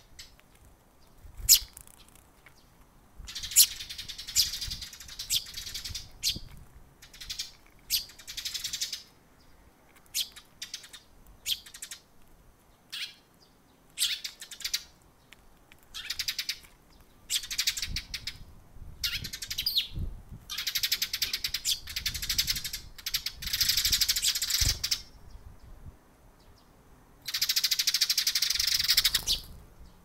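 Eurasian tree sparrows chirping, with single chirps between dense runs of rapid chirping that last a second or two. The longest run comes near the end.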